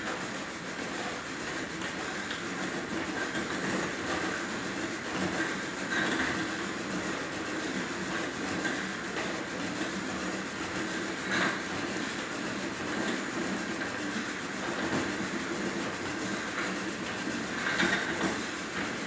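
Merax elliptical trainer running in use with a steady rattling mechanical noise and a sharper, louder sound three times, roughly every six seconds. The noise is abnormal, a fault that developed after only a week of use.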